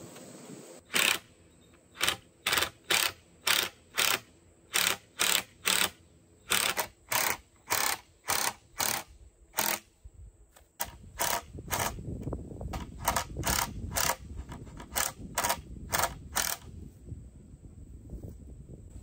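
Cordless drill driving long exterior wood screws into lumber, run in many short bursts of about two a second that stop about three-quarters of the way through.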